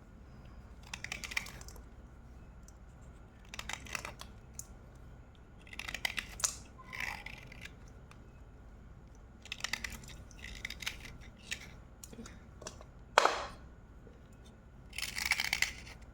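Slate pencils being bitten and chewed close to the microphone: short bursts of crunching every second or two, with one sharper, louder snap about thirteen seconds in.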